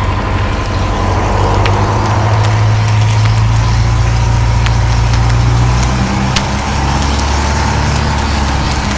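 An engine running steadily, its low pitch shifting twice, over the hiss of a hose stream and the scattered crackles and sharp pops of a burning car.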